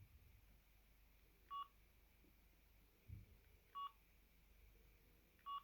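Samsung SGH-2200 mobile phone keypad beeping three times, about two seconds apart, as keys are pressed to scroll through its menus. Each beep is short and high-pitched. A soft low thud from handling the phone comes about three seconds in.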